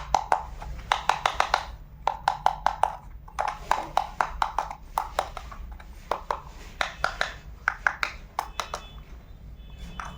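Small plastic toy kitchen pieces clicking and clacking against each other and on a hard surface as they are handled, many short taps a second in irregular runs.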